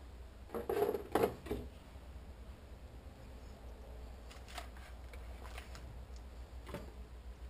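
Handling clatter of battery packs being set into the battery tray of a 1/5 scale electric buggy's chassis: a few knocks and clicks about a second in, then scattered light ticks, over a faint low hum.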